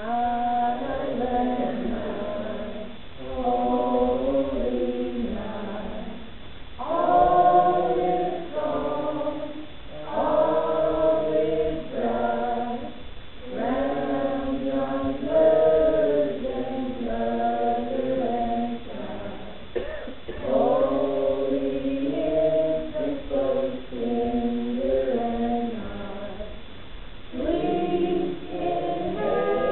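A small mixed choir of teenage, child and adult voices singing a song together, unaccompanied, in phrases of a few seconds with short breaks between them.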